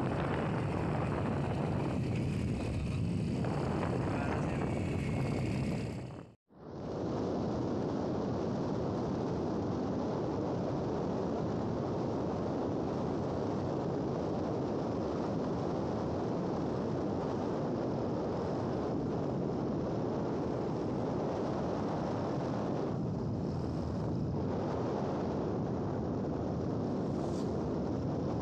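Steady rush of wind and road noise from a vehicle driving along a road, with the engine's run buried in it. The sound drops out briefly about six seconds in, then carries on the same.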